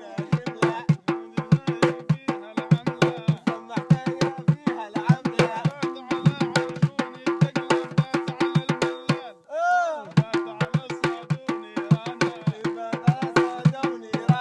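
Drums played by hand in a fast, driving rhythm over a steady held tone. About two-thirds of the way through, the drumming breaks off briefly for a single rising-and-falling voice call, then starts again.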